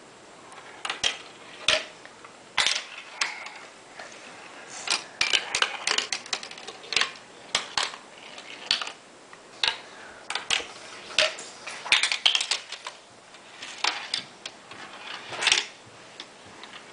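A marble rolling and clattering down through a Lego brick marble run: an irregular string of sharp clicks and clacks as it drops, knocks against the bricks and trips the run's switcher, tipper and windmill.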